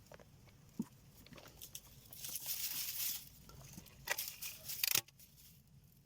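Close rustling and crinkling, loudest about two to three seconds in, with a cluster of sharp clicks and knocks just before the end.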